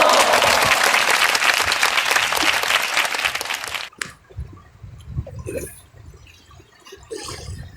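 Water splashing and fizzing with a dense crackle for about four seconds, then cutting off sharply, followed by quieter scattered knocks and rustles.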